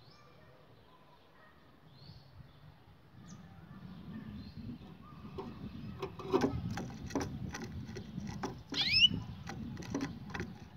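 Canary moving about its wire cage: a run of sharp taps and wing flutters from about six seconds in as it hops and flaps on the perch and cage floor. Near nine seconds comes a single short chirp gliding down in pitch, the loudest sound, over a low rumble.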